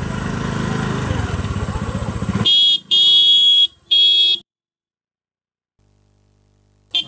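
A motor scooter's engine running with a low rumble, then the horn honked in three short blasts. The sound cuts out completely for a couple of seconds before another honk near the end.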